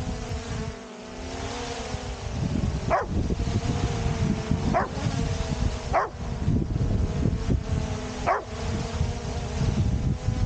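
Steady multi-tone whine of a quadcopter drone's propellers, with low wind rumble on its microphone, and a dog barking four times, about a second or two apart.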